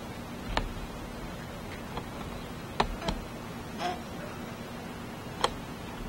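Steady hiss and a faint low hum from an old camcorder home-video soundtrack, broken by four sharp clicks, two of them close together near the middle.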